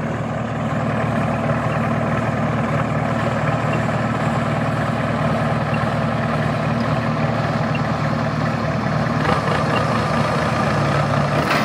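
Diesel farm tractor engine idling steadily, its note shifting slightly near the end.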